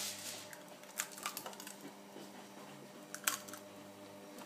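Eggshell crackling as a hen's egg is prised open by hand over a glass jug. There are a few faint clicks and a sharper one about three seconds in.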